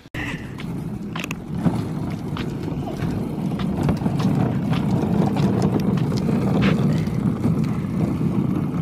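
Hard plastic wheels of a child's ride-in wagon rolling over a concrete sidewalk: a steady rumble with scattered small clicks and knocks, growing louder as it nears.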